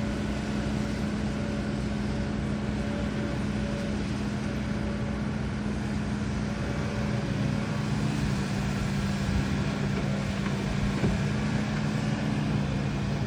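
HIDROMEK HMK230LC excavator's diesel engine running steadily under work, its pitch holding, with a lower engine note joining about halfway through and a single knock near the end.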